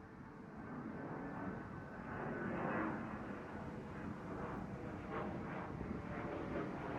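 DART commuter train approaching and running past, its steady rolling noise growing louder, with repeated clatter of wheels over rail joints from about two seconds in.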